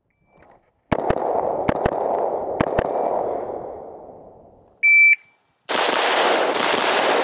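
AR-15 rifle fired six times in three quick pairs, double taps on three targets within about two seconds, the shots ringing out and fading. A short electronic shot-timer beep follows, then about half a second later another fast string of rifle fire that blurs into a loud, continuous din.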